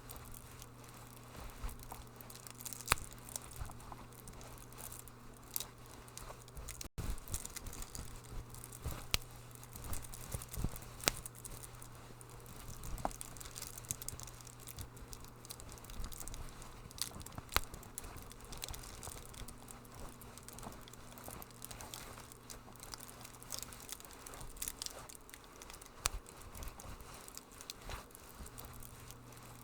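Wood fire crackling in a fireplace, with frequent irregular pops and snaps over a soft bed of hiss and a steady low hum. The sound cuts out for an instant about seven seconds in.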